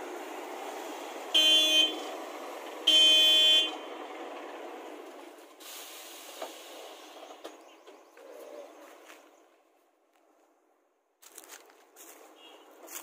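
Vehicle horn honking twice, a short blast then a slightly longer one about a second and a half later, over the steady noise of running machinery.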